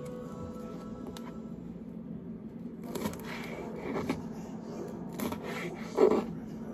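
Kitchen knife slicing through a green bell pepper onto a cutting board: a quiet start, then separate cuts about a second apart in the second half, the last one the loudest.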